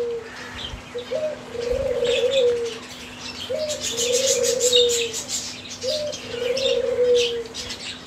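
A dove cooing three times, each call a short rising note followed by a long rolling coo, with finches chirping and twittering throughout.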